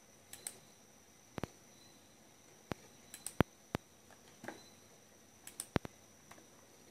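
Computer mouse button clicking as tabs are selected in a programming program: a series of sharp, irregular clicks, some in quick pairs, with a faint steady high whine underneath.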